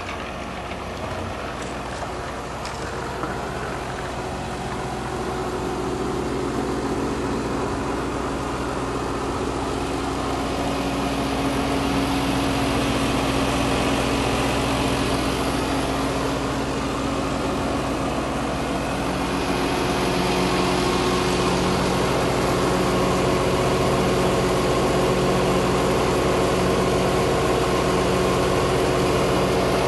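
Vintage Ferguson tractor engine running steadily at a constant speed, the sound growing louder over the first twenty seconds and then holding.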